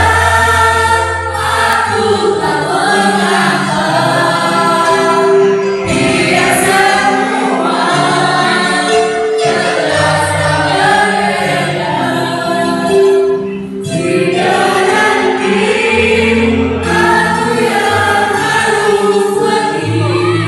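A choir singing with instrumental accompaniment over a steady stepping bass line.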